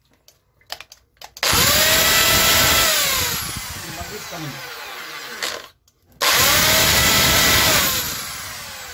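Electric drill spinning a wire brush inside a tap body, scouring mud off the valve seat of a leaking tap. It starts about a second and a half in at full speed, then slows and drops in pitch, stops briefly just past the middle, and starts again at full speed before slowing once more near the end.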